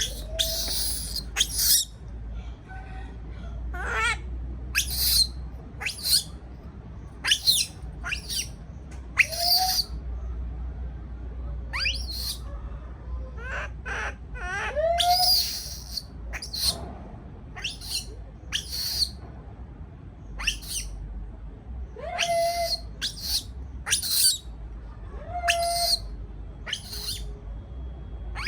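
Baby monkey crying out in repeated short, high-pitched squeaks and squeals, roughly one a second: the distress calls of an infant frightened at being left alone in its cage.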